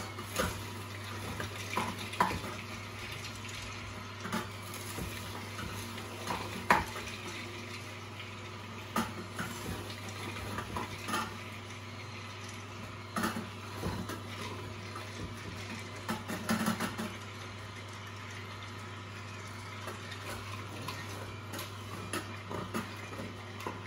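Angel twin-gear juicer running with a steady low hum while pear pieces are pressed into it with a wooden plunger, giving irregular sharp cracks and crunches as the gears crush the fruit.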